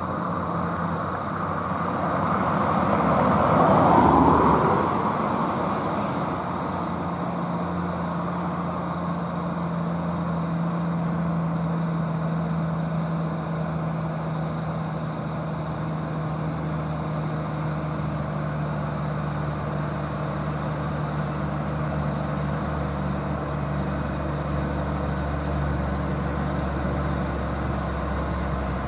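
A car passes close by with a swell of tyre and engine noise peaking about four seconds in. Then a heavy truck's diesel engine runs steadily as the truck approaches, a low steady hum.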